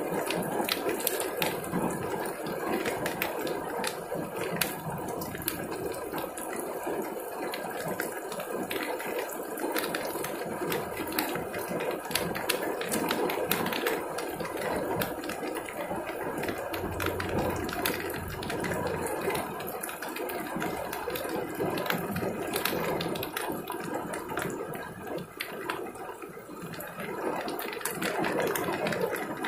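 Heavy downpour: dense rain falling on pavement and splashing, full of sharp individual drop clicks, steady throughout.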